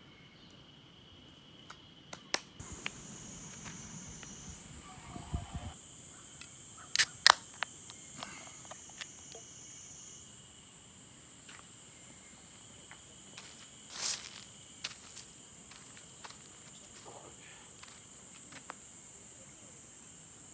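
Steady high-pitched insect chorus, broken by scattered sharp clicks and knocks; the loudest are a quick pair about seven seconds in and another about fourteen seconds in.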